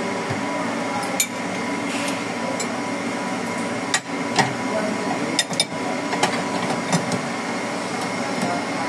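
Sharp metallic clinks and taps of a steel wrench on bolts and a steel bracket, about nine irregular hits, over a steady machinery hum.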